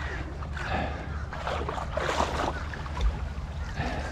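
Shallow water sloshing and splashing in irregular bursts, over a steady low wind rumble on the microphone.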